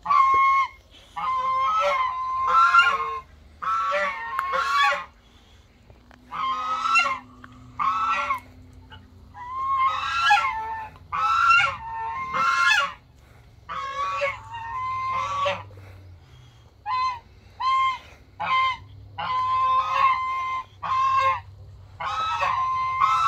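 Several domestic geese honking over and over. Their loud pitched calls come in quick runs of several honks, with short pauses between the runs.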